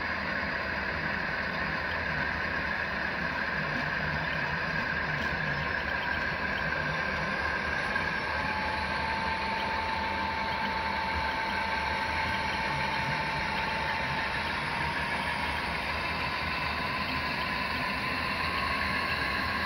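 Model freight train running past behind Santa Fe diesel locomotive models: a steady mechanical hum of the locomotives' motors and wheels on the track, with a steady whine throughout and a second, lower whine coming in about eight seconds in.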